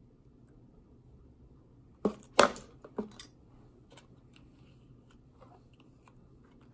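Hard plastic clacks and knocks about two seconds in, from a plastic water bottle being set down on a desk and a plastic candy-kit tray being handled, then a few light ticks.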